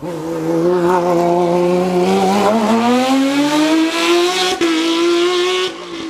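Race car engine under hard acceleration out of a hairpin. The note is held for about two seconds, then rises steadily, breaks briefly near four and a half seconds, and drops off abruptly shortly before the end as the car pulls away.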